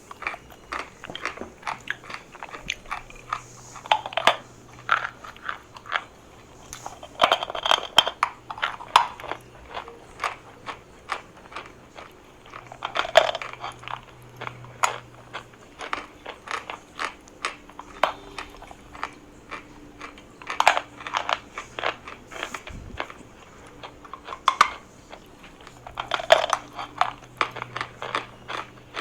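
Pieces of chalk being bitten and chewed close to the microphone: dense crisp crunching and crumbling, with a louder bite every few seconds.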